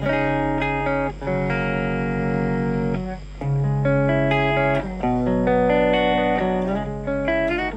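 Electric guitar played through a Blackstar ID:Core Stereo 10 V2 practice amp on its clean voice: chords ringing out one after another with a thick, big tone, with short breaks between them about one, three and five seconds in.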